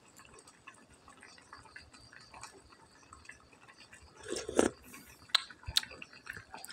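Pot of instant noodles and spinach simmering on a gas burner with a faint crackle. About four seconds in, a sip of the hot broth is slurped from a spoon, followed by a few sharp lip smacks as it is tasted.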